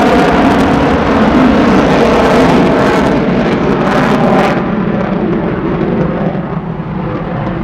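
Navy fighter jet's engines, loud and harsh as it makes a low pass. About halfway through the sound dulls and eases off as the jet draws away.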